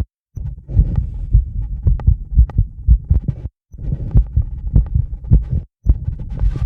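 A human heart beating fast, about two beats a second, picked up by a microphone held against the chest. It is tachycardia brought on by rebreathing the same air from a bag to build up CO2. The audio cuts out for a moment three times.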